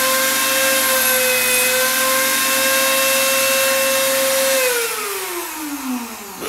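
Handheld rotary tool with a small grinding stone running at full speed, a steady high whine over a hiss. About four and a half seconds in it is switched off and winds down, its pitch falling as it slows.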